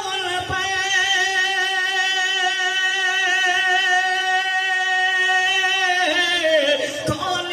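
A man singing an Urdu nazm into a microphone, unaccompanied, holding one long note with a slight waver for about six seconds, then sliding down in pitch near the end.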